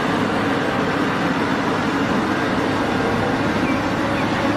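Large hydraulic mining excavator (Cat 6015B) running steadily, a continuous engine rumble and machinery noise, while it dumps a bucket of sand into an articulated dump truck.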